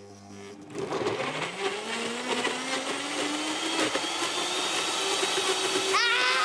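High-speed countertop blender running on its smoothie program, its motor speeding up over the first few seconds and then running steadily as it churns partly thawed frozen strawberries, cream and powdered sugar into ice cream. A high voice cuts in near the end.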